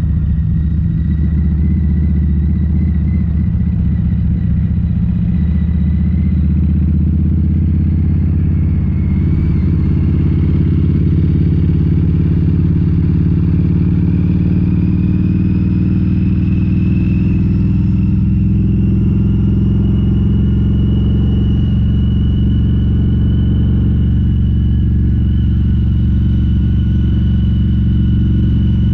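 Harley-Davidson V-Rod's liquid-cooled V-twin running steadily, its pitch creeping slowly upward through the middle stretch and then holding.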